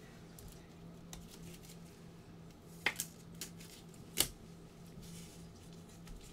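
Trading cards and packs being handled by gloved hands: a few short, sharp clicks and snaps about three to four seconds in, over a low steady hum.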